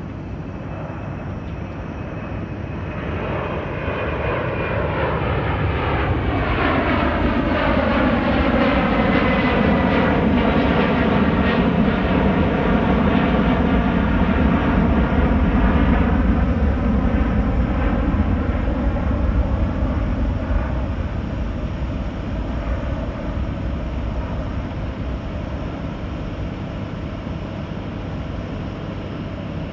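Airbus A330 twin-engine jet airliner departing and flying past: the engine noise builds, peaks about halfway through, then slowly fades, with a high whine that falls in pitch as the aircraft goes by.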